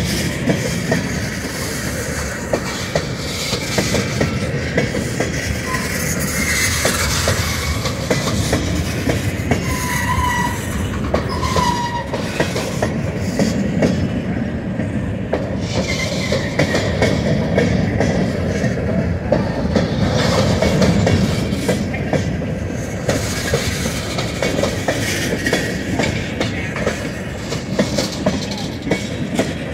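Freight train cars rolling past: a steady rumble with the rapid clatter of steel wheels over the rails, and a couple of short high wheel squeals about ten and twelve seconds in.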